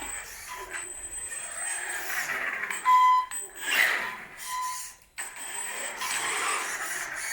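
3D-printed Tarmo4 RC car driving, its brake squealing: three short, high squeals over a steady hiss, the loudest about three seconds in.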